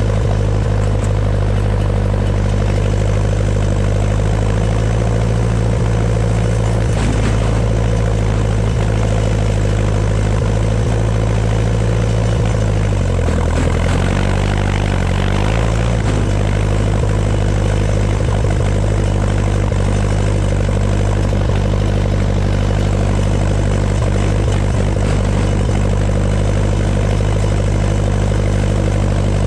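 Ferguson TED20 tractor's four-cylinder engine, running on petrol, pulling steadily along. About halfway through the engine speed drops briefly, then picks back up.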